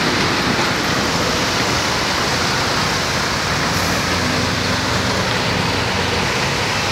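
Steady hiss of heavy rain mixed with traffic: vehicle engines running low underneath as trucks, cars and motorbikes drive through floodwater on the road.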